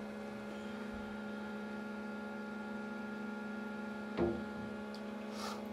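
Steady low electrical hum throughout, with a single short plop about four seconds in as a bath mallow is dropped into the bathwater.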